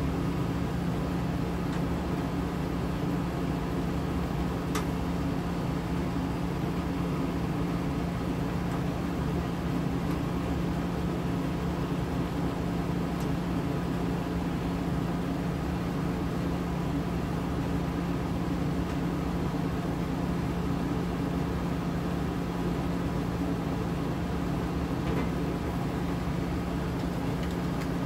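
A steady mechanical hum with a constant low drone, and a faint click about five seconds in.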